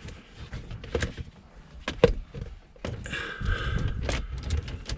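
Handling noises as a metal can is wedged up under the deck against the cleat bolts' backing plate: a few sharp knocks and clicks, and the links of the anchor chain clinking as it is pushed aside. A brief scrape comes about three seconds in, and a low rumble joins after it.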